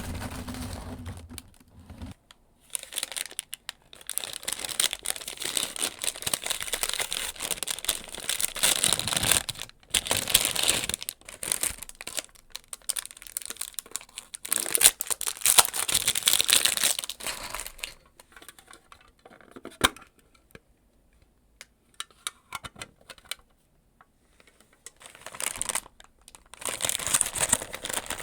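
Packaging being crinkled and torn open by hand, in long rustling stretches broken by short pauses and one longer quiet spell, with a single sharp click in that quiet spell.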